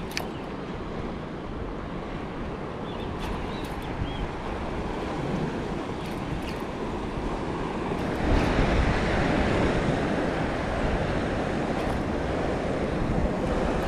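Wind buffeting the microphone over water lapping, a steady rushing noise that gets louder about eight seconds in, with a few faint clicks.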